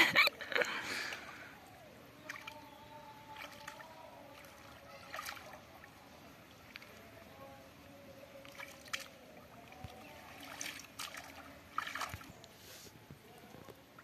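Hands groping through shallow muddy water and mud, sloshing and splashing on and off. A louder splash comes right at the start, then fainter scattered splashes every second or two.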